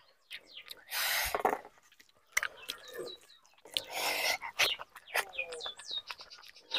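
Thick curry poured from a steel bowl onto a plate of rice, followed by wet sounds of the rice being mixed and squeezed by hand. Small birds chirp repeatedly in the background, each call a short, quick, falling chirp.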